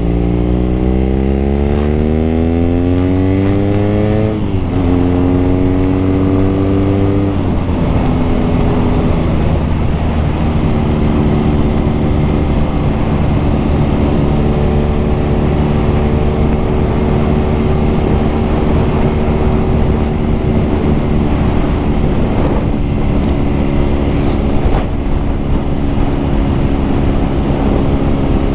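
BMW R nineT's boxer-twin engine and exhaust under way: it pulls up through the revs for about four seconds, drops with a gear change, pulls again and shifts once more at about seven seconds, then holds steady revs at cruise.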